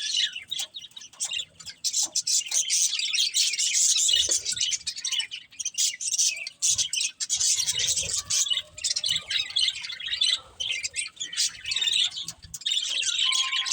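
Several budgerigars chirping and chattering, a dense run of rapid high-pitched twitters with brief lulls.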